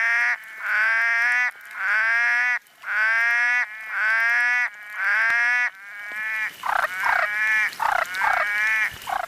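Toco toucan calling: six long, harsh calls about a second apart, then a quicker run of short, falling calls near the end.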